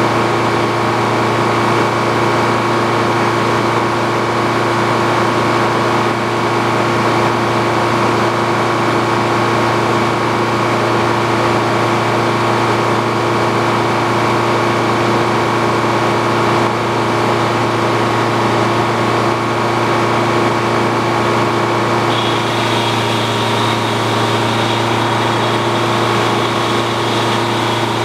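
Old Frick sawmill running steadily: its power unit and machinery give a constant engine-like drone with a hum. A thin high whine joins about three-quarters of the way through and holds.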